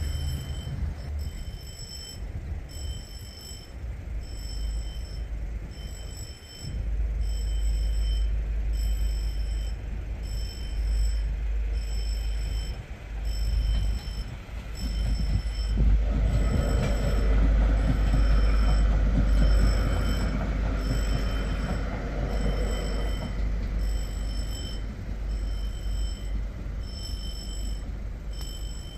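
Level-crossing warning bell ringing in an even, repeating pattern while the barriers are down. Under it a low rumbling noise swells and is loudest in the middle.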